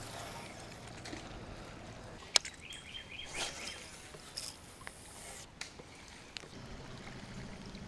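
Quiet open-water ambience from a small fishing boat: a low, steady wash of water and air noise. A single sharp click comes a little over two seconds in, with a brief high chirp about a second later and a few lighter ticks.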